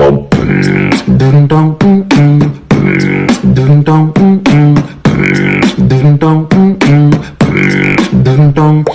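Hip hop beat with a looping, voice-like melodic figure and sharp percussive hits, repeating about every two seconds, with no rapping.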